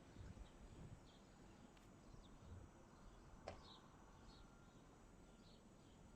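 Near silence: faint outdoor ambience with a low rumble, a few faint short high chirps and a single click about halfway through.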